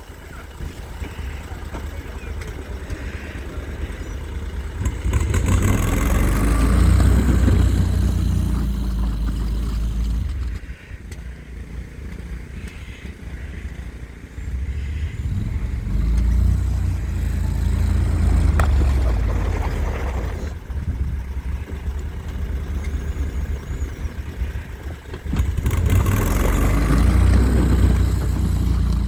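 A vehicle's engine revving in three long surges, pulling through deep snow, with quieter running between the surges.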